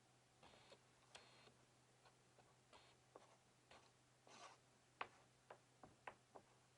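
Near silence with faint, irregular light clicks and a few brief scrapes, over a steady low hum.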